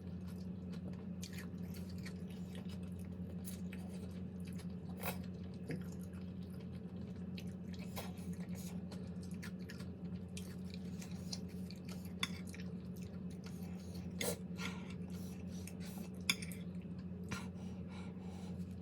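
Close-up chewing and eating sounds, with scattered sharp clicks of utensils against a dish, over a steady low hum.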